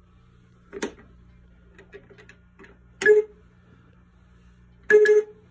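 Funrise tabletop pinball toy's electronic beeps: three short, loud tones about two seconds apart, with light clicks in between.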